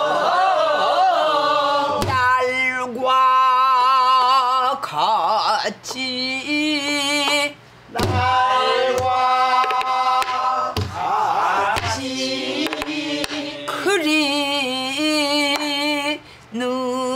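A woman singing a Namdo folk song in the Korean traditional vocal style, holding long notes with a wide, heavy vibrato. A buk barrel drum struck with a stick marks the rhythm with a few sparse beats.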